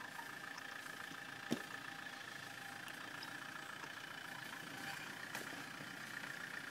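A 4x4 off-road vehicle's engine idling steadily as it creeps slowly down a steep, rutted slope. A single sharp click about a second and a half in.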